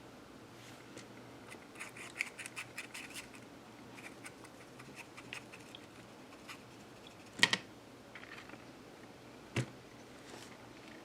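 Small clicks and light scratching from handling small parts and tools on a workbench, with a quick run of little ticks about two seconds in, a louder sharp click past the middle, and one more click near the end.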